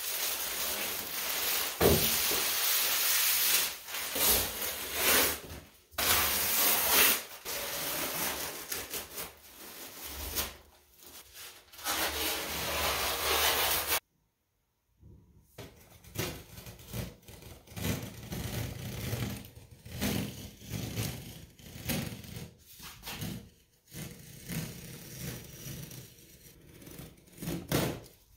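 Thin plastic sheeting crinkling and rustling loudly in bursts as it is peeled off a freshly cured fiberglass layup. After a sudden break about halfway, quieter rubbing, scraping and tearing as the peel ply is stripped from the cured fiberglass edge.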